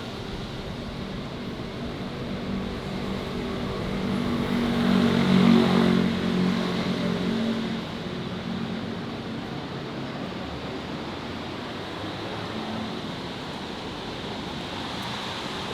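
A motor vehicle's engine passing close by on a city street, building up to a peak about five seconds in and fading away by about eight seconds, over steady traffic noise.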